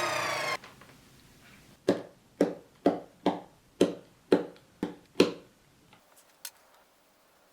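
A whine falling in pitch cuts off about half a second in. It is followed by eight sharp knocks, about two a second, and a faint click near the end.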